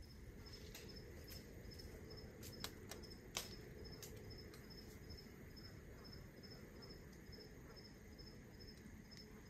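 Acorns dropping from a live oak, a scatter of sharp faint clicks as they hit leaves, branches and the ground, the strongest about three and a half seconds in. Underneath, an insect chirps steadily about three times a second.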